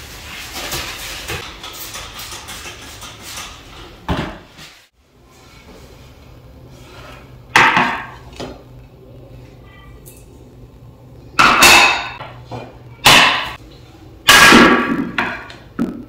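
A cloth rubbing across a bathroom mirror for the first few seconds, then a ceramic tray and small items set down on a stone countertop: several sharp clunks with a short ring, the loudest in the second half.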